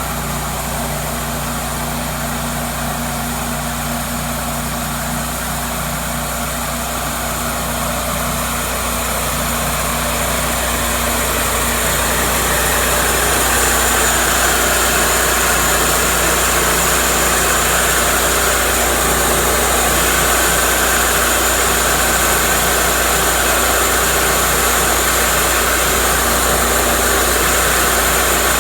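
Cook's MP-32 band sawmill running with a steady engine drone. A little under halfway through it grows louder and harsher, with a hiss in the upper range that holds on.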